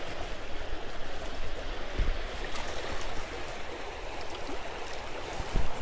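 Creek water running steadily, an even rushing sound, with a brief low rumble about two seconds in.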